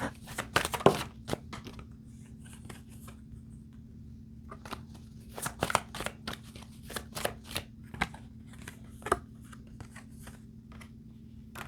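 Tarot cards being shuffled and handled, a scatter of short papery snaps and riffles coming in clusters, busiest in the first second and again in the second half. A faint steady low hum runs underneath.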